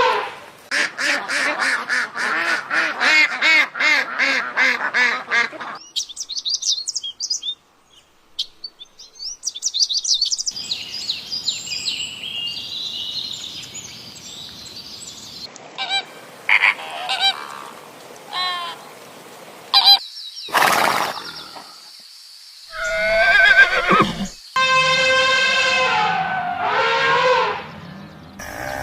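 Domestic fowl calling, in several short clips cut together: first a fast run of repeated calls, about three a second, for some six seconds, then higher chirping and shorter scattered calls.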